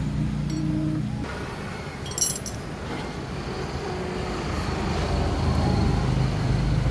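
Kawasaki Barako motorcycle engine running with a steady low hum that cuts out about a second in, followed by a short metallic clink; a low rumble builds again toward the end.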